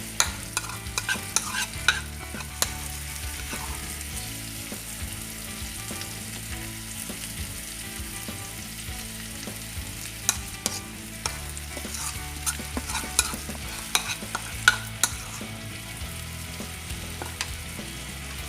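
Marinated chicken leg pieces sizzling steadily in ghee and butter on a tawa, with a spatula clicking and scraping against the pan in the first few seconds and again about halfway through.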